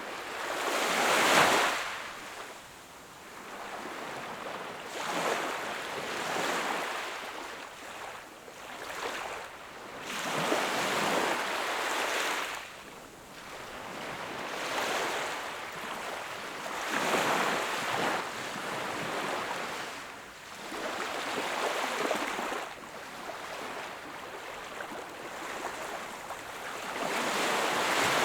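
Small waves breaking and washing on a shore, each one a swell of surf that rises and fades every few seconds; the biggest break about a second in.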